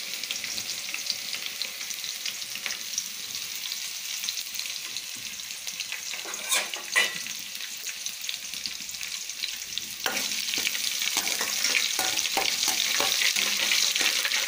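Crushed garlic frying in hot oil in a steel kadai: a steady sizzle with crackling, which grows louder about ten seconds in.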